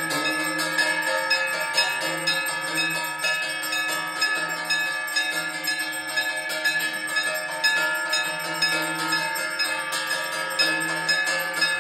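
Temple bells ringing without pause during evening arati, with rapid, overlapping strikes over sustained ringing tones.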